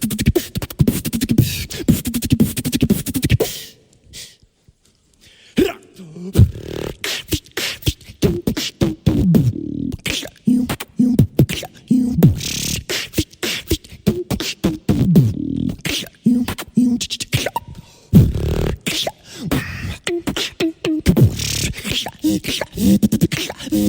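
Solo beatboxing: rapid mouth-made drum sounds, sharp clicks and hissing hi-hat and snare strikes, over pitched bass tones that often slide downward. About four seconds in it drops to near silence for nearly two seconds, then picks up again.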